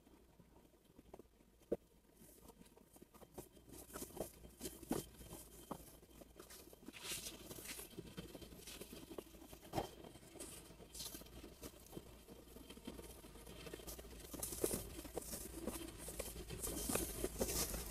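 Rustling and crinkling of a dark protective work coverall being pulled on over the arms and shoulders, with scattered light taps and clicks. It is faint at first and grows busier and louder toward the end.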